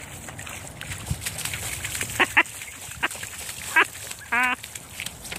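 Rubber boots splashing and wading through a slushy meltwater puddle, with a few short high vocal calls and one held call a little after four seconds.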